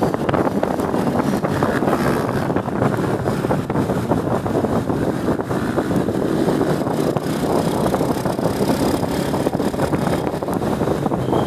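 Wind buffeting the microphone over the steady running of a motor scooter riding in traffic on a wet road.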